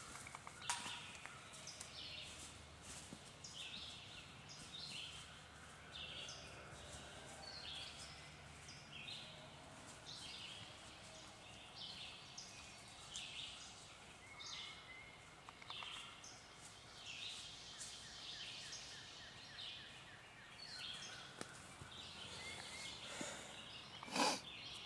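Songbirds calling: short high calls repeating about once a second over a faint steady background. A single brief thump near the end.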